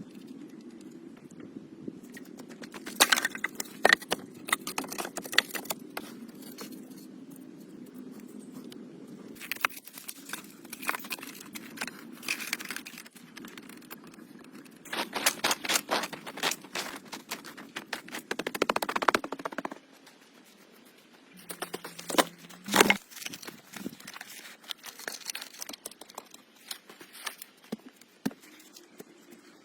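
Footsteps crunching through forest litter, with dry twigs and leaves crackling underfoot in several bursts. A single sharper snap comes about three quarters of the way in.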